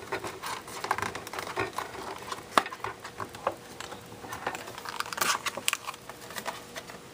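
Plastic and cardboard packaging being handled: crinkling, rustling and small irregular clicks as the clear plastic tray is worked open and the earbuds in their plastic bag are taken out, with one sharper click about two and a half seconds in.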